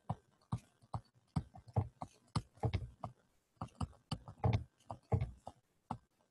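Stylus tapping and scratching on a pen tablet while words are handwritten: an uneven run of light clicks and knocks, about three a second.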